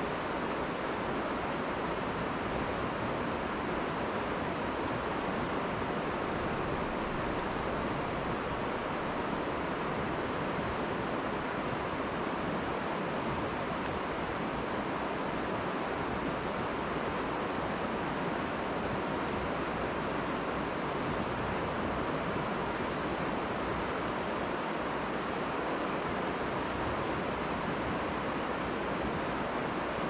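Mountain river flowing, a steady even rushing of water.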